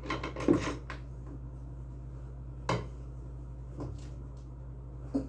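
Sharp metallic clinks and knocks of tools and parts being handled during a washing machine repair: a quick cluster in the first second, then single knocks every second or so, over a steady low hum.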